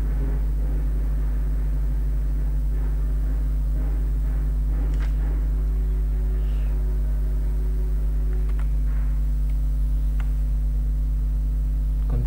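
Steady low electrical hum with a few faint, short clicks scattered through it.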